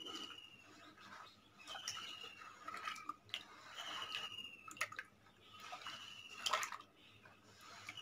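Faint wet squelches and slaps of a hand working watery clay slurry in a basin. In the background a bird repeats a short falling whistle about every two seconds.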